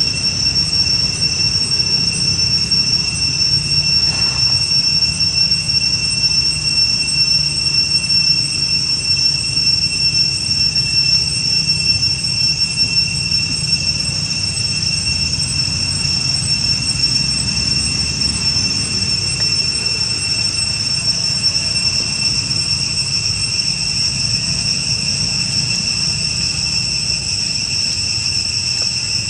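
Insect chorus droning outdoors: a steady, unbroken high-pitched whine over a low rumble.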